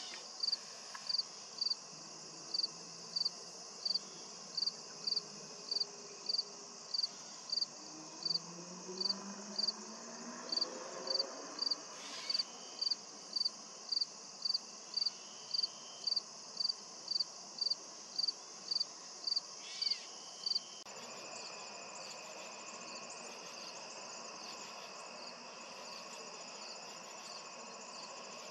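A cricket chirping in an even rhythm, about three chirps every two seconds, over a steady high insect chorus; the chirping stops about two-thirds of the way through and the chorus carries on.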